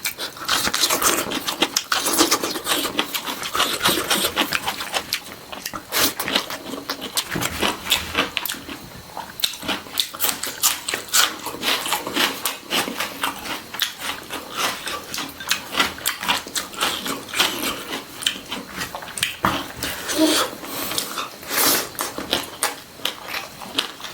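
Close-miked eating sounds of a person chewing food, with a dense run of wet mouth clicks and smacks.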